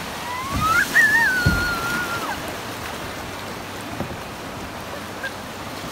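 River rapids rushing around a kayak, a steady hiss of churning water, with wind buffeting the microphone. In the first two seconds a high, thin squeal rises and then falls away.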